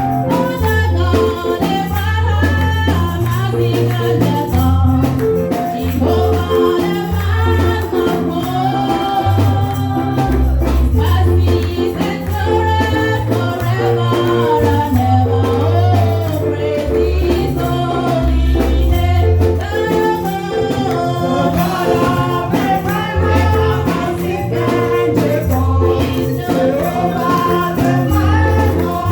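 Gospel praise music: voices singing over a moving bass line, with percussion such as tambourine.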